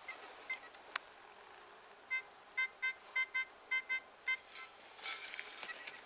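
Metal detector beeping in a quick, uneven run of about eight short beeps, the signal of a metal target in the ground. A single click comes before it, and a rustling noise near the end.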